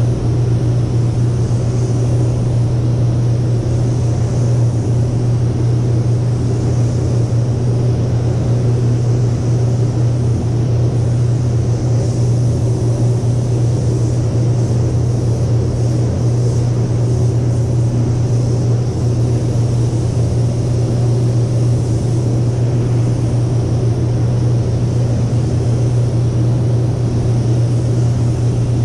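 Paint booth ventilation fans running with a steady, loud low drone, with a faint hiss of air from a spray gun as automotive paint is sprayed.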